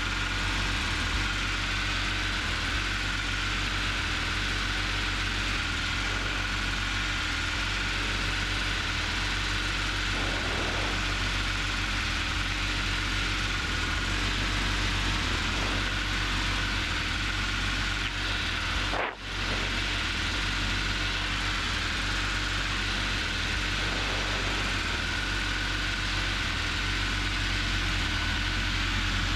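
Robin DR400 light aircraft's piston engine and propeller running steadily in flight, heard from inside the cockpit, with a faint steady whine above the drone. The sound drops out for an instant about two-thirds of the way through.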